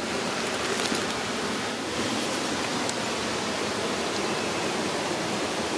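Waterfall rushing steadily: a constant, even roar of falling water that the camper calls quite rowdy.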